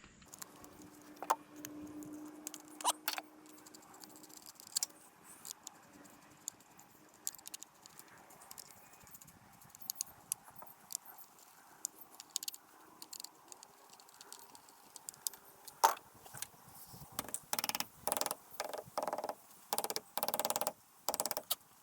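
Scattered light clicks and small metallic rattles of chainsaw parts and tools being handled during a repair. They turn into quicker, louder bursts of rattling near the end.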